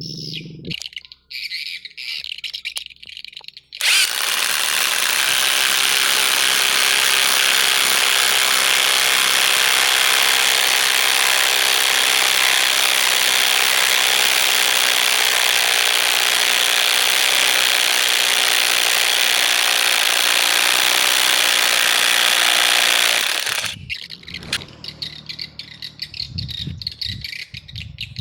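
LUCID LD-60 brushless cordless impact driver running continuously for about 19 seconds, starting abruptly a few seconds in and stopping shortly before the end.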